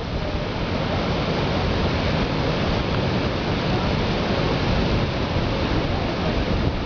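Upper Yosemite Fall's water plunging over the cliff, heard from above as a steady, even rush.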